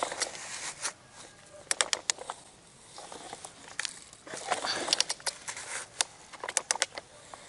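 A plastic toy excavator bucket, worked by hand, scrapes and scoops sand and tips it into a plastic toy dump truck's bed. The sound comes as several bursts of small clicks and sand pattering.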